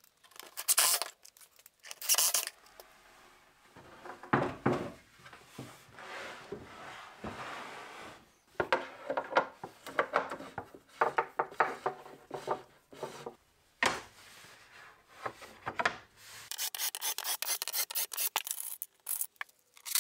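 Workshop handling noise on plywood: short scrapes, knocks and rubbing as parts are moved and worked. A dense run of rapid clicks in the last few seconds comes while a cordless drill is worked on the plywood benchtop.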